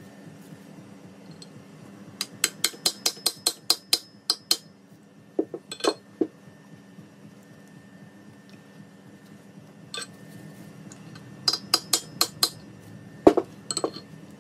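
Metal-on-metal tapping. A quick run of about ten sharp clinking strikes comes at roughly four a second, then scattered groups of taps follow. The loudest single strike comes near the end.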